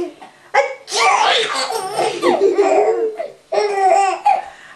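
Young child laughing in several bursts of high-pitched giggles, with one long stretch of laughter in the middle.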